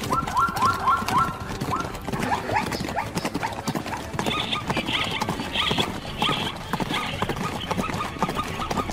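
A zebra struggling under a lion's attack: hooves thudding and scuffling, with a run of short, falling-pitched yelping calls, about four a second, over the first second and a half.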